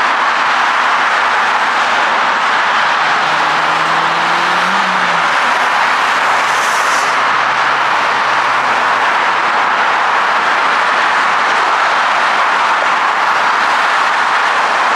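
Dense multi-lane freeway traffic on Highway 401: a steady, unbroken roar of tyres on pavement. A low engine hum from a passing vehicle rises out of it between about 3 and 9 seconds in.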